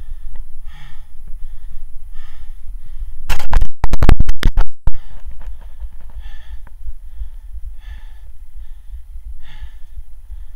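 A climber's heavy, regular breathing, one breath about every second and a half, over a steady low rumble. About a third of the way through comes a loud, distorted crackle of noise lasting a second and a half.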